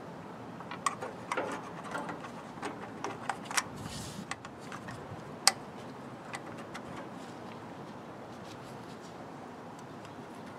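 Scattered light clicks and taps as the spark-control rod and the roller timer (commutator) on a Ford Model T engine are handled and fitted back together, the sharpest click about five and a half seconds in; after about six seconds only a steady low background remains.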